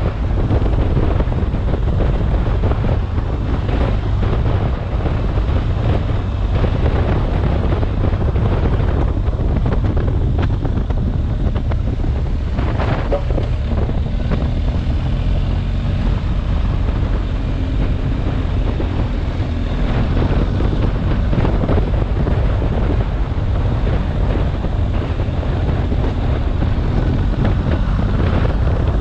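Steady wind noise on the microphone of a moving BMW R1250GS adventure motorcycle, with the bike's boxer-twin engine running underneath.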